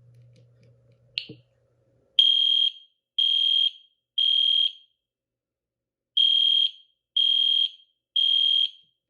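Edwards Genesis horn-only fire alarm horn sounding a loud, high-pitched steady tone in the temporal-three evacuation pattern: three half-second blasts, a pause, then three more. A short chirp comes about a second in, before the pattern starts.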